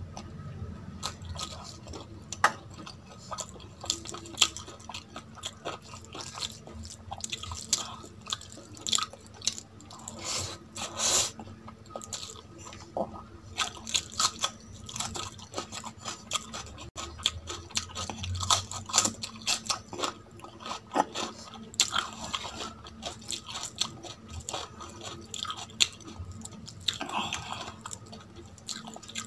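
Close-miked chewing and biting of a piece of curried chicken and rice eaten by hand, with many small sharp, irregular crunches and clicks.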